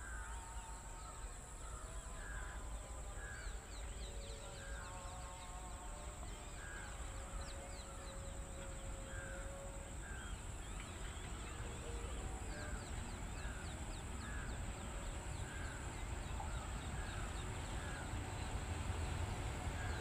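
Crows cawing over and over, one call roughly every second, against a steady high-pitched drone. A low rumble swells toward the end as an electric-hauled freight train draws closer.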